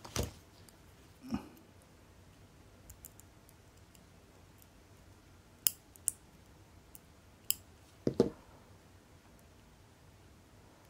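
A few sharp clicks and light knocks spaced seconds apart, with two duller knocks among them: small watchmaking hand tools and parts handled on a workbench.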